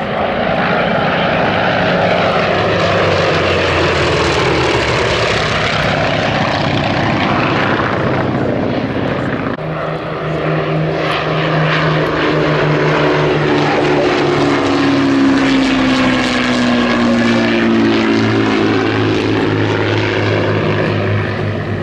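Vintage piston-engined naval fighters flying past in formation: first a Goodyear Corsair, Grumman Bearcat and Grumman Wildcat with big radial engines, their drone swelling and sliding down in pitch as they pass. Then, after a cut, two Hawker Nimrod biplanes and a Hawker Sea Hurricane with Rolls-Royce V12 engines, a lower steady note with a tone that glides down as they go by.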